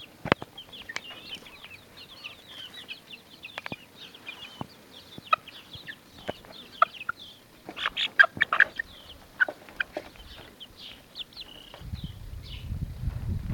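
Young chickens calling in many short, high chirps and clucks, with sharp taps of beaks pecking at a slice of bread, thickest and loudest about eight seconds in. A low rumble comes in near the end.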